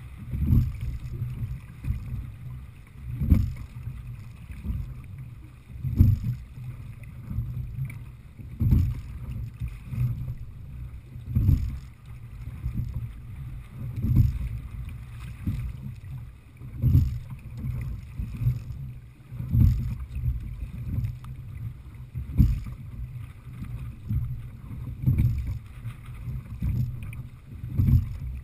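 A Heritage 18 open-water sculling boat rowed at a steady stroke rate: a knock from the oars and seat on each stroke, about every two and a half to three seconds, over a steady low rumble of wind and choppy water against the hull.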